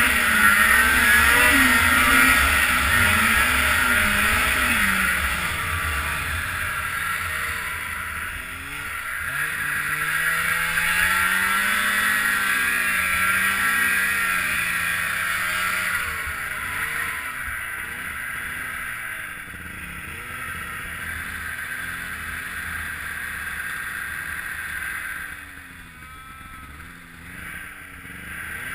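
Snowmobile engine revving up and down as it rides through powder, over a steady rushing noise; it eases off and gets quieter about halfway through.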